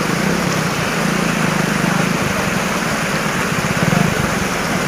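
Vehicle engines running as trucks and vans drive slowly through floodwater across the road, over a steady rush of flowing water; the engine sound grows louder near the end.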